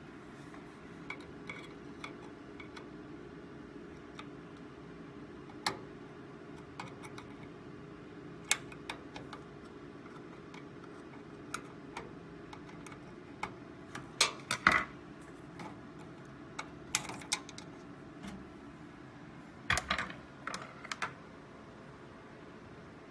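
Scattered sharp metallic clicks and scrapes from a screwdriver prying a coin-cell CMOS battery out of its motherboard holder. The loudest clicks come in a cluster a little past halfway, with a few more near the end as the battery comes free.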